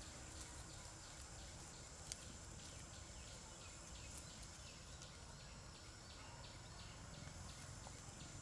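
Faint outdoor ambience of insects: a steady high buzz and a soft chirp repeating two to three times a second. A single sharp click comes about two seconds in.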